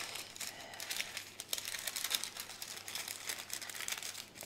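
Baking paper crinkling and rustling as it is folded and tucked around a fish parcel, a steady run of small crackles.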